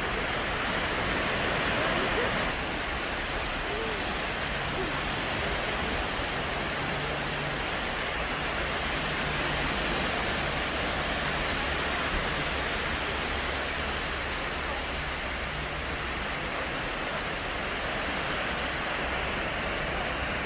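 Small waves breaking and washing up a sandy shore: a steady, even rush of surf.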